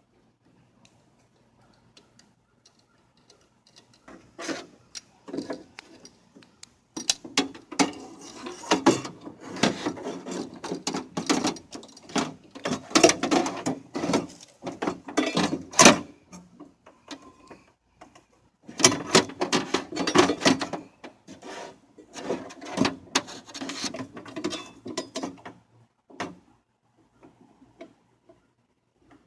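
Hand work on a car door during a power window regulator replacement: parts are handled, fitted and clipped in, giving irregular knocks, clicks and rubbing. It starts about four seconds in and comes in two busy spells, with a short lull in the middle.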